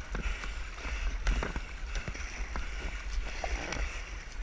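Kayak paddles dipping and splashing in seawater as two paddlers stroke, a scatter of irregular short splashes, over a steady low rumble of wind on the camera microphone.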